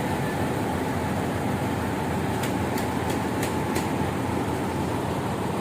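Steady rumble of heavy construction machinery running, such as the concrete pump or a transit mixer truck at a concrete pour. Five quick sharp clicks sound about halfway through.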